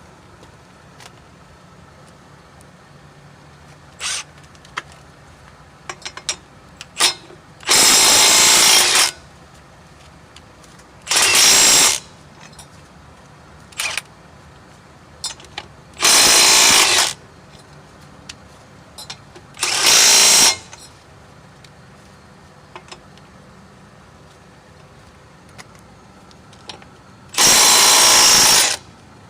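Milwaukee M12 Fuel Stubby 1/2" cordless impact wrench, in its third speed mode, hammering on lug nuts in five short bursts of about a second each. Small clicks and knocks come between the bursts.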